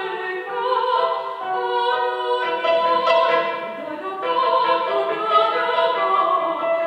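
A woman singing in classical style, accompanied by a cimbalom, its hammered strings ringing under the voice.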